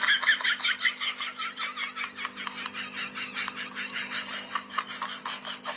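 Ostriches pecking rapidly at a plastic basin, making a fast, continuous run of hard taps, roughly eight or more a second.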